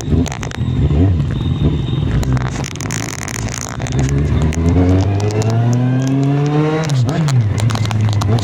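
Kawasaki Z750 motorcycle engine pulling hard under throttle, its pitch climbing steadily for about three seconds, then dropping sharply near the end and settling into a steady drone.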